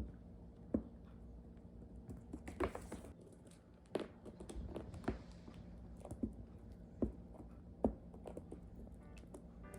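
A cockatiel's beak pecking and nibbling, making irregular sharp little clicks and taps about once a second, over a steady low hum.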